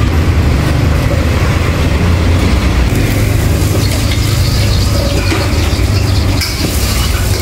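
A loud, steady low rumble, like a motor or burner running.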